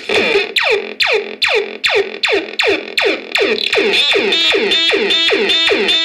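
Homemade minimal-techno radio synth playing a steady pulse of notes about two a second, each note sweeping down in pitch. About four seconds in, the notes lengthen and run together, with a high warble on top.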